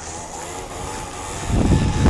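Moped scooter engine running, its pitch wavering as it is revved on the ice. About one and a half seconds in, a loud rumble of wind on the microphone covers it.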